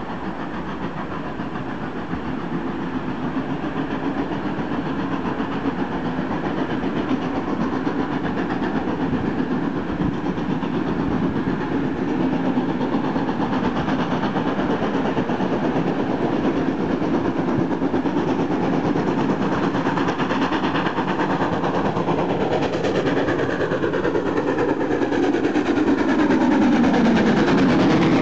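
Steam locomotive hauling a passenger train approaching along the line, its running sound growing steadily louder until the engine draws level near the end.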